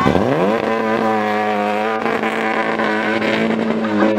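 Peugeot 205 rally car's engine accelerating hard out of a tight corner: the revs climb steeply at first, then hold high. Right at the end the pitch drops for an upshift.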